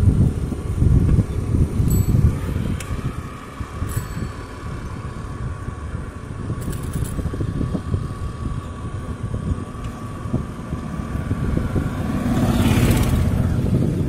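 Wind buffeting the microphone and road rumble while riding a bicycle, with a motor vehicle passing close by near the end, its noise swelling over a second or two.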